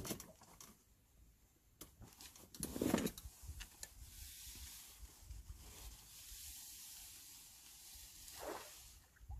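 Faint night-time outdoor ambience with a steady soft hiss, a few soft clicks, and two short, louder low sounds: one about three seconds in and a brief falling one near the end.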